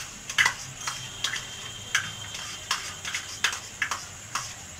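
Pasta cooking in a pan on the stove: a steady sizzling hiss, with a string of short scrapes or clinks from stirring, about two a second.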